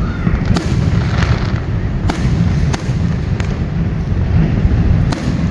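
Fireworks going off: a series of sharp cracks and pops at irregular intervals, about six in all, over a continuous heavy low rumble.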